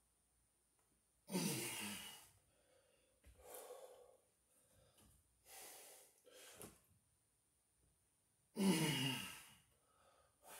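A man's heavy effortful breathing during weighted pull-ups: two loud exhales with voice, each falling in pitch, about seven seconds apart, with quieter breaths between.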